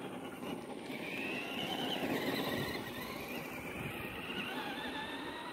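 Electric motor and gears of a Traxxas RC truck whining as it runs, the pitch rising about a second in, dropping near the middle, then climbing again as the truck speeds up and slows.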